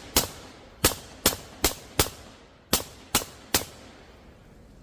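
A firearm fired rapidly through a suppressor: eight semi-automatic shots in quick, uneven succession, stopping a little past halfway through.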